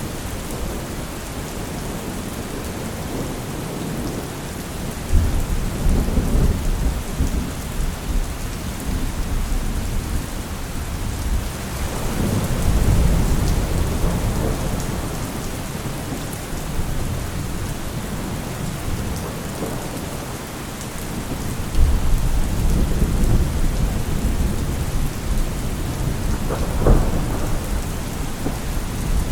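Steady rain falling with thunder rumbling several times: low rumbles swell up about five seconds in, around twelve seconds and again past twenty seconds, with a sharper clap near the end.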